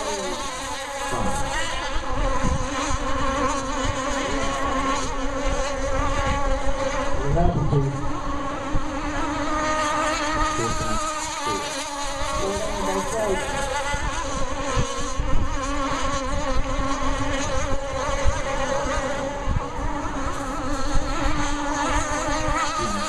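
Radio-controlled rigger racing boats running flat out, a high buzzing motor whine that wavers up and down in pitch as the boats go round the course.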